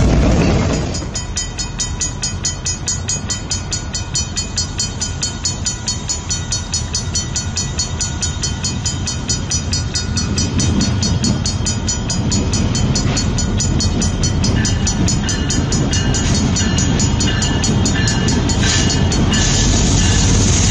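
Freight car wheels rolling past close for about a second. Then a level-crossing bell ringing in rapid, even strikes, while Canadian Pacific diesel locomotives approach with their engine sound growing from about halfway.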